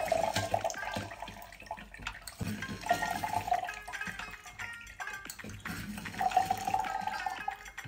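Lime juice trickling and dripping from a lever-arm citrus press into a glass carafe as lime halves are squeezed.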